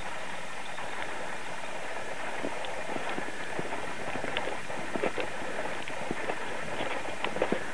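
Footsteps crunching in fresh snow, irregular, starting a couple of seconds in and coming more often near the end, over a steady hiss.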